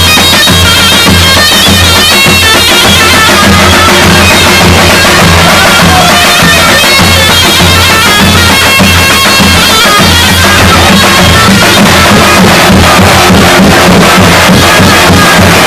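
Davul and zurna playing loudly: the shrill, reedy melody of the zurna, a Turkish double-reed shawm, winding and ornamented over heavy beats of the davul bass drum.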